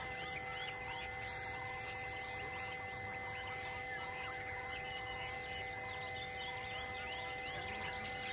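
Forest ambience: a steady insect drone with many short bird chirps. From about halfway, one bird repeats a short rising chirp about twice a second, over a steady hum.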